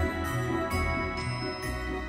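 Background Christmas music with jingle bells ringing about twice a second over held notes and a moving bass line.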